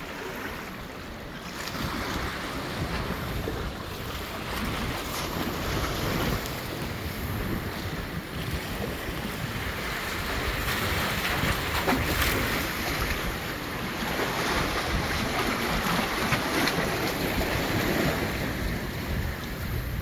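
Sea surf washing in at the shore, its level rising and falling over several seconds, with wind buffeting the microphone.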